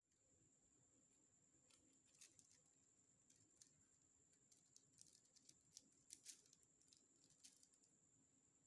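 Near silence, with a scatter of faint clicks from a spring-loaded cookie scoop being worked to drop a ball of cookie dough onto parchment paper.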